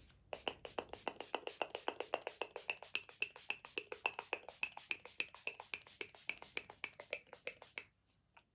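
Maybelline setting spray's pump mister sprayed in rapid repeated spritzes, about five quick pumps a second, which stop shortly before the end.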